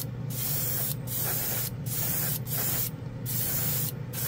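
Gravity-feed airbrush spraying clear coat, hissing in a run of short blasts under a second each with brief gaps between them, about one and a half a second. A steady low hum runs underneath.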